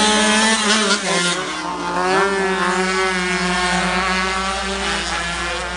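Several small racing motorcycle engines revving hard as the bikes pass and lean through a corner, their pitch rising and falling with the throttle and gear changes. The sound eases off slightly near the end.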